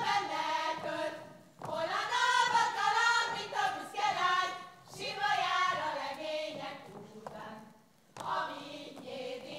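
A group of women singing a Hungarian folk song together without instruments, in phrases with short breaks between them and a longer pause near the end before the singing starts again.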